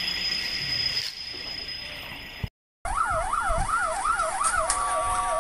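Emergency vehicle siren sweeping rapidly up and down, about three times a second, with steady tones joining in near the end. Before a brief silent cut about halfway through, a higher, faster warbling alarm tone fades away.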